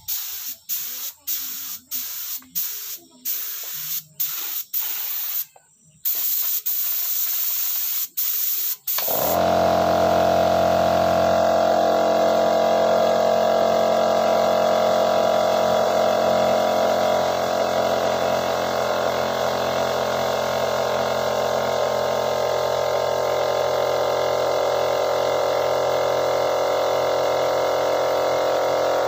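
Gravity-feed spray gun spraying paint in short hissing bursts, about two a second, as the trigger is pulled and released, for roughly the first nine seconds. Then a loud, steady hum sets in suddenly and runs on unchanged.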